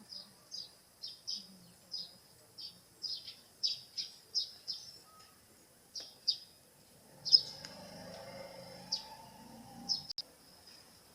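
Small birds chirping in a quick series of short, high chirps, two or three a second, thinning out after about seven seconds. A faint low rumble joins for a couple of seconds after the middle.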